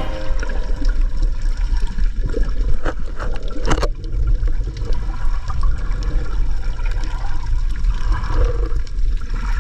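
Sea water sloshing and gurgling, with a heavy low rumble throughout and a few sharp knocks about three to four seconds in.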